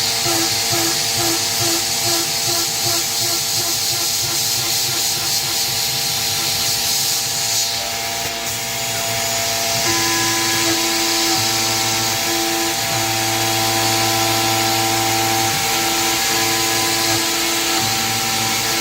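PM-25 CNC milling machine cutting with a 1/4-inch three-flute carbide end mill at about 110 inches per minute: motor and cutting tones that pulse about twice a second early on and hold steady with brief breaks later. A hiss of mist coolant runs alongside and stops about eight seconds in.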